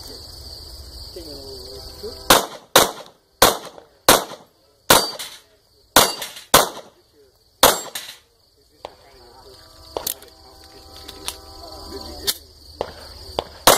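A string of pistol shots from a competition stage: eight loud shots in quick pairs and singles over about five seconds, then several fainter shots about a second apart near the end as the shooter moves through the stage.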